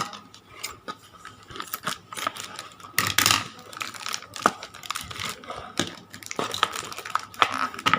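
Beyblade Burst packaging being handled and opened: crinkling and tearing, loudest about three seconds in, with many small sharp clicks and taps.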